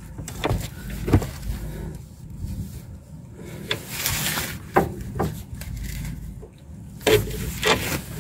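Irregular light metal knocks and clicks, with some rubbing, as a new anti-roll bar link is handled and fitted into its mounts on a Peugeot 308's front suspension.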